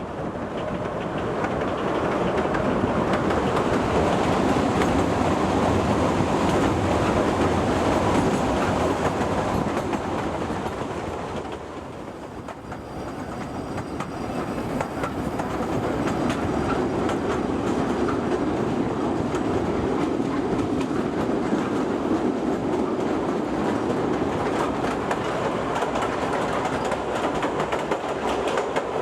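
Kurobe Gorge Railway narrow-gauge trolley train running, heard from on board: a steady rumble with wheels clattering over the rail joints. The noise eases briefly about twelve seconds in, then builds again.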